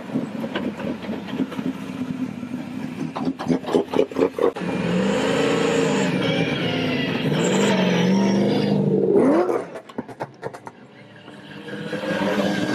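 Modified drift cars' engines running as the cars roll past in a queue. A quick run of sharp exhaust pops comes about three seconds in, then one engine is held revving with a wavering pitch for about five seconds, climbs and cuts off suddenly; near the end another car's engine rises as it approaches.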